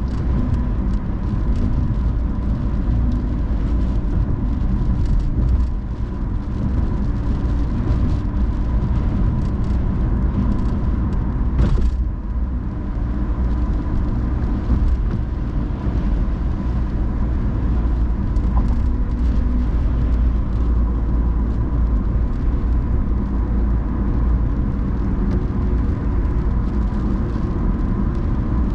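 A car driving in the rain: steady low road and engine rumble with fine ticks up high, and a faint steady high tone. A brief sharper sound comes about twelve seconds in.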